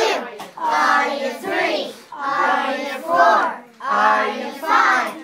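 A group of children singing together in phrases about a second long, with short breaks between them.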